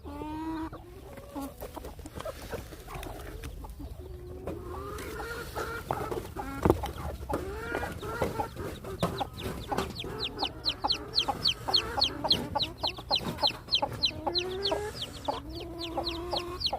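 A bearded white silkie hen clucking low, with her chicks peeping. From about halfway through, the chicks' peeps come in a fast, high-pitched string of several a second.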